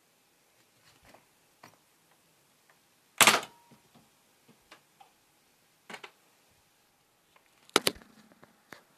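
Nerf foam-dart blaster firing: a sharp snap about three seconds in. Softer clicks and knocks follow, and another loud snap comes near the end.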